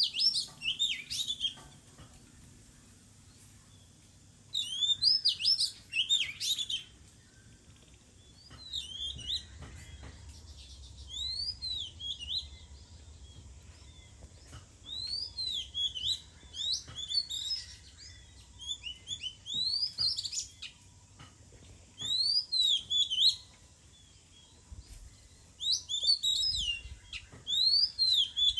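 Oriental magpie-robin singing: phrases of several whistled notes that swoop up and down, repeated every two to three seconds with short pauses between.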